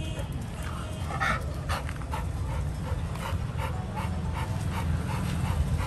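Labrador retriever puppy panting in quick, even breaths, about two to three a second, over a steady low rumble.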